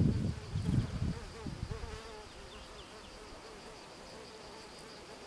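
A flying insect buzzing close by, its pitch wavering as it moves, over a steady high chirring of insects. A low rumble dies away in the first two seconds.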